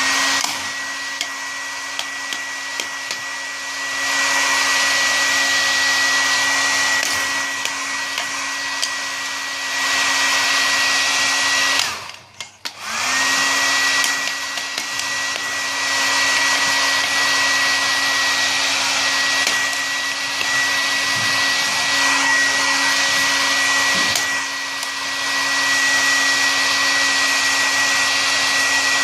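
Hair dryer running, a steady blowing hiss with a thin high whine. It is switched off for about a second near the middle and starts again, the whine rising back to pitch. Its loudness steps up and down a few times.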